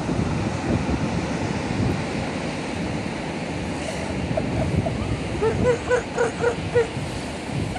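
Steady surf and wind noise. About two-thirds of the way in, an animal gives a quick series of about six short barking calls.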